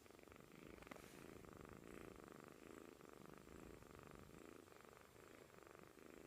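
Sleeping kitten snoring faintly, a rasping snore with each breath, about one a second.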